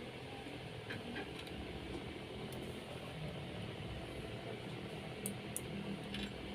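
Steady low background hum with a few faint, short clicks scattered through it.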